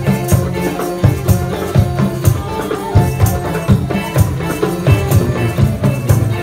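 Live Malay ghazal ensemble playing an instrumental passage on accordion, gambus, guitar and flute, with tambourine jingles over a steady beat.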